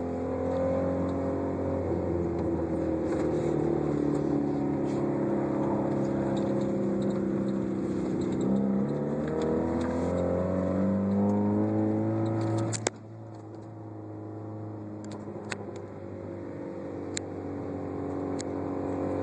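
1991 Honda CRX engine heard while driving, its pitch climbing under acceleration and dipping between gears. About 13 seconds in there is a click and the engine note drops suddenly and gets quieter, then slowly rises again, with a few sharp ticks.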